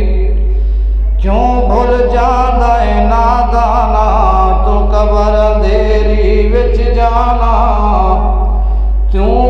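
A man chanting a melodic religious recitation in long, wavering held phrases. The first phrase begins about a second in and breaks off near the end before the next starts. A steady low hum runs underneath.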